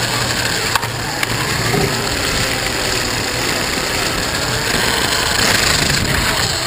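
Onboard sound of a 1/24 scale slot car running laps on a slot track: the steady mechanical buzz and rattle of its small electric motor, guide and tyres running along the track, with a couple of sharp clicks about a second in.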